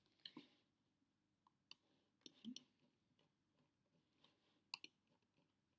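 Near silence broken by a handful of faint, short clicks scattered through the pause.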